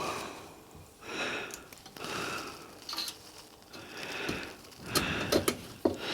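Breathing, with light handling noise from spokes being laced into a bike wheel, and a few sharp clicks about five seconds in.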